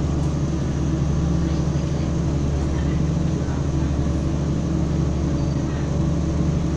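Boat engine running at a steady cruise, a constant low drone with a deep hum, heard from on board.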